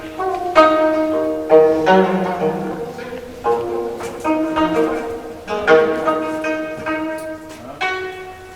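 Background music played on string instruments: a slow melody of separate notes, each starting sharply and fading away.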